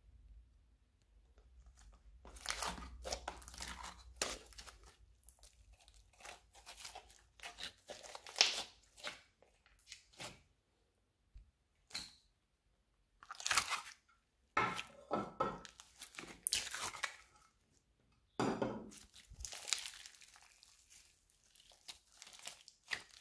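Hands squeezing and pressing a large mass of slime mixed with clay, giving sticky squishing sounds in irregular bursts with short pauses between.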